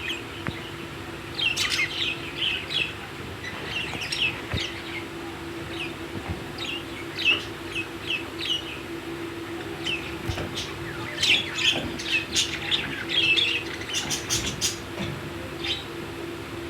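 Budgerigars chirping: short, high chirps in scattered clusters and quick runs, over a steady low hum.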